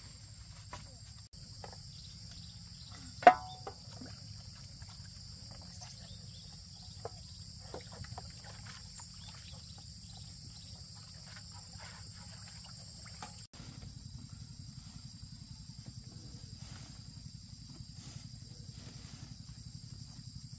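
Steady high-pitched chirring of insects over a low steady rumble. About three seconds in comes a single loud knock that rings briefly, and a few faint knocks and clatters follow a few seconds later, as household things are handled.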